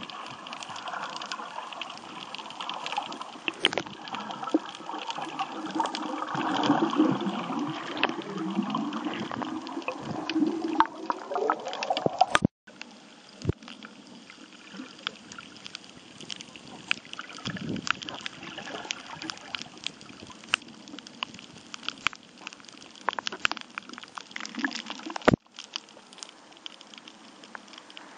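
Water heard through an underwater camera: a muffled gurgling, sloshing wash with scattered sharp clicks throughout. It drops out for a moment twice, about halfway through and near the end.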